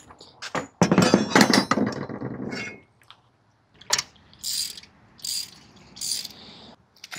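Metal truck-cap mounting brackets and their bolt hardware being handled and fitted together: a clatter of metal parts, a sharp click, then a few short high rasping clicks a little under a second apart.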